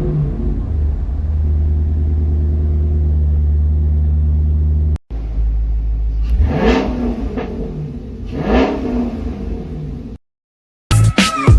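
Chrysler 300 engine idling steadily, then, after a brief cut, revved twice, each rev rising and falling back. It cuts to silence, and music starts near the end.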